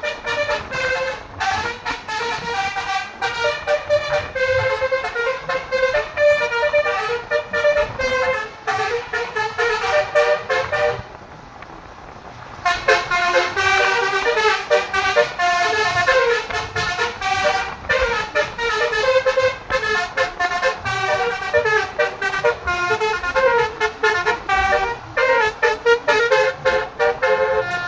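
Basuri multi-tone vehicle horn playing a fast melody, one note after another. It breaks off briefly about eleven seconds in, then plays on.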